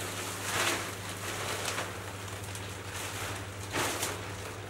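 Plastic sheeting rustling and crinkling as it is pulled and spread out over a floor, with two louder swishes, about half a second in and near the end.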